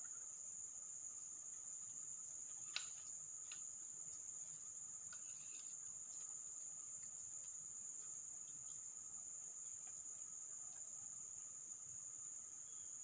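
Steady high-pitched drone of forest insects chirring without a break, with a single short click about three seconds in.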